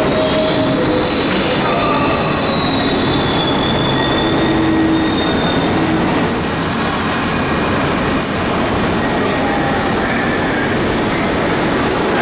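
R62A subway train pulling out, its steel wheels squealing on the rails in high wavering tones over a steady rumble. A high hiss joins about six seconds in.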